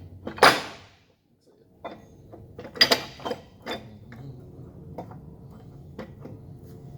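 Heavy steel transmission parts clanking and scraping as a shaft assembly is slid into a truck gearbox case: a loud metal scrape about half a second in, a cluster of clanks near three seconds in, then scattered light knocks.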